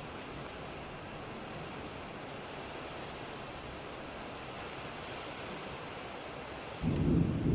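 Steady hiss of rain in a thunderstorm. Near the end a loud, low rumble of thunder breaks in.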